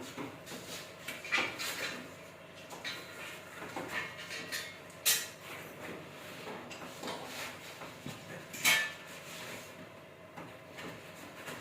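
Irregular knocks, clinks and clatter of hand tools and hard parts being handled, with sharper clanks about a second in, about five seconds in and near nine seconds in.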